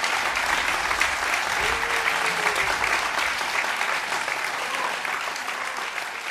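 Audience applauding steadily, slowly fading near the end.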